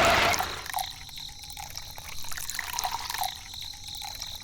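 Water trickling and dripping, with small drops every half second or so, after a louder rush of noise that dies away in the first half second.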